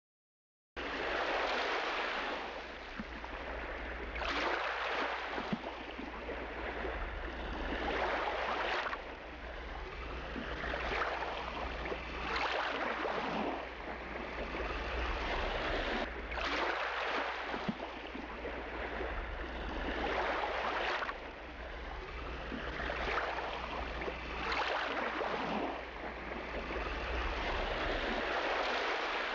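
Rescue boat under way: water rushing and spraying along the hull, swelling in surges every two to four seconds, over a steady low drone.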